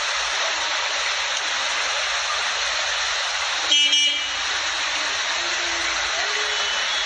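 Steady rushing noise of floodwater and rain in a flooded street, with one short car horn honk about four seconds in.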